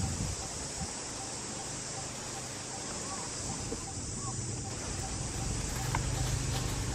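Outdoor ambience: a steady hiss with a faint, evenly repeating peep and a few faint short chirps, and a low rumble that grows slightly near the end.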